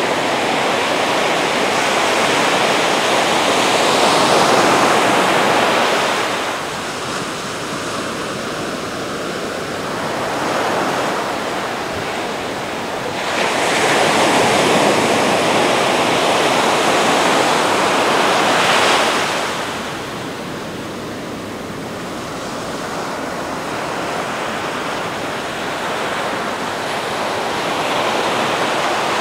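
Ocean surf: a steady hiss of breaking and washing waves that swells and ebbs, with long surges several seconds each, the loudest about a third and again two thirds of the way in.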